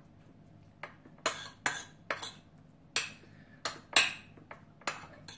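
A metal spoon scraping and clinking against a ceramic bowl as rice is mixed into stir-fried noodle sauce: a run of short, separate clinks and scrapes, about two a second.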